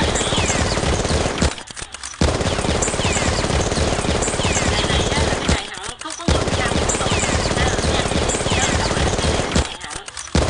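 Rapid automatic gunfire sound effect, a continuous rattle of shots cut by a short pause about every four seconds.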